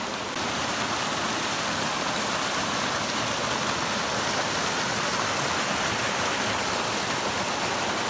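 Spring-fed stream splashing down a small cascade over mossy rocks: a steady rush of running water.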